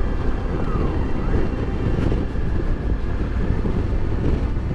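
Honda Africa Twin CRF1000L's parallel-twin engine running at a steady cruise along a gravel road, with wind buffeting the microphone.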